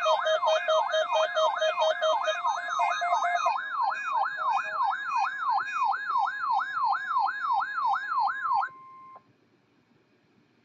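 Electronic alert siren on a weather radio recording, warbling fast up and down about three times a second, with quicker pulsing beeps layered over it at first. It cuts off suddenly about eight and a half seconds in.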